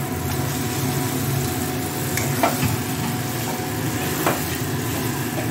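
Boiled mutton pieces going into a kadai of frying masala paste, sizzling as a metal spatula stirs them in and scrapes the pan twice, with a steady low hum underneath.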